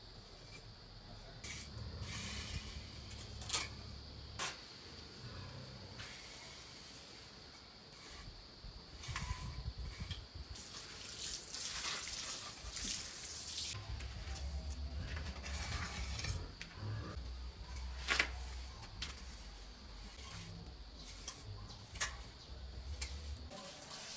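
Water from a plastic watering can splashing and spraying onto cement and mortar, among scattered scrapes and taps of a trowel on the fresh floor. The longest stretch of hissing comes about halfway through.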